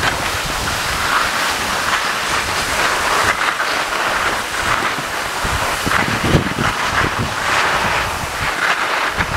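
Skis hissing and scraping over packed snow, swelling and fading in waves, with wind rumbling on the microphone.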